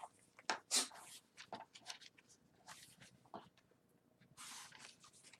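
Paper and card pages of a handmade journal rustling and brushing as they are handled and turned: short scattered swishes, with one longer swish a little after four seconds.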